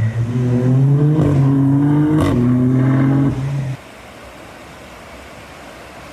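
A car engine running under load, its pitch creeping slightly upward, cut off abruptly about four seconds in. A quieter steady rush of noise follows.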